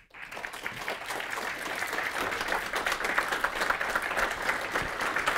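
Audience applauding: many hands clapping in a dense patter that swells quickly at the start, then holds steady.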